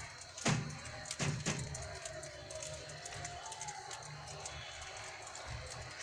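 Budgerigars feeding at a seed dish, pecking with small clicks. There are a few sharp knocks in the first second and a half.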